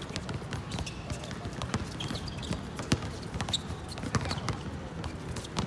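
Pickup basketball game on a hard outdoor court: the ball bouncing and knocking and sneakers squeaking in brief high chirps. A sharp knock about three seconds in is the loudest. Players' voices come through now and then.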